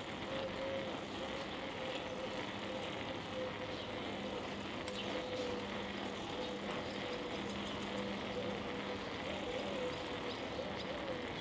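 Steady rushing noise of riding a bicycle, with wind on the chest-mounted microphone and tyre noise, under a faint steady hum.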